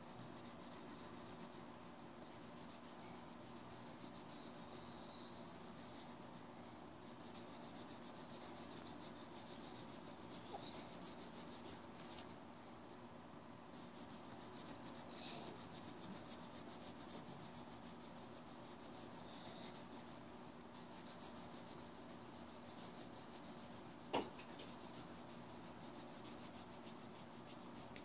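Green colored pencil scratching quickly back and forth across a colouring-book page, shading in an area, in runs of several seconds broken by short pauses, the longest a second and a half about twelve seconds in. A single light tap about twenty-four seconds in.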